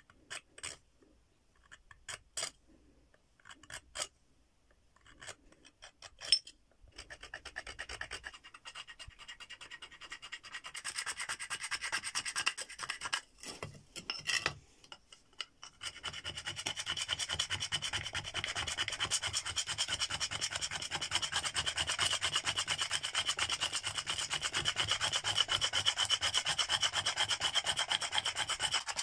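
A sharp stone flake scraping along the shaft of a large animal bone in rapid, continuous strokes, a dense rasping that grows louder and steadier about halfway through. A few sharp clicks and knocks come first, as bone and stone are handled.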